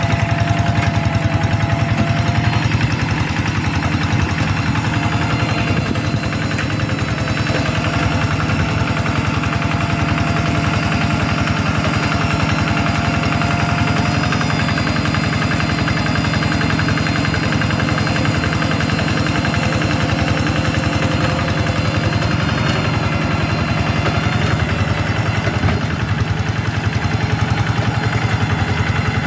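Hand tractor's engine running steadily with a rapid, even chugging of firing pulses.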